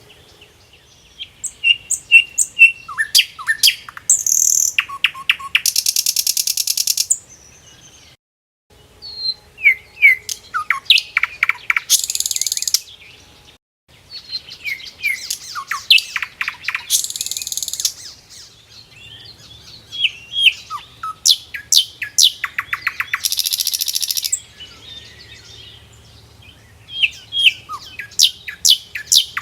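Songbird singing a repeated phrase about every five seconds: a run of high chirps and quick falling whistles, then a buzzy trill, with brief pauses between phrases.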